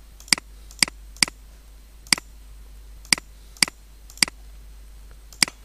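Computer mouse button clicking eight times at an irregular pace, a fraction of a second to about a second apart, over a faint low hum. The clicks work the photo viewer's next-photo arrow.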